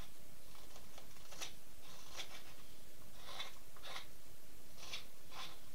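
Carving knife taking small, careful paring cuts from the pine beak of a duck decoy, a short dry scrape with each stroke, about six strokes at an uneven pace.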